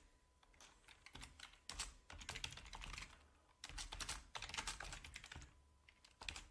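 Faint keystrokes on a computer keyboard, clicking in quick irregular runs with short pauses between them.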